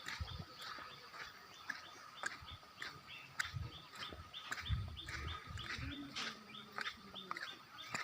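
Birds chirping with short, rapidly repeated high notes, over a faint steady high-pitched tone and a few dull low thumps.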